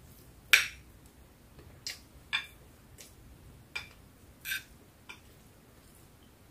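Metal spoon clinking and scraping against a plate as food is scooped up, about seven short clinks spread over the few seconds. The first, about half a second in, is the loudest.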